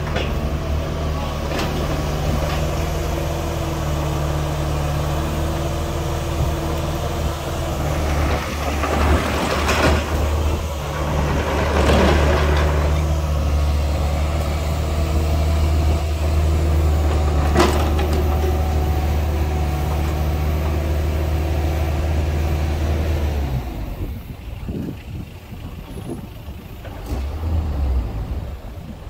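Kubota U55-4 mini excavator's diesel engine running while the boom, arm and coupler are worked hydraulically. The engine and hydraulics swell under load a few times in the middle, with a couple of sharp metallic clanks. The engine sound falls away near the end.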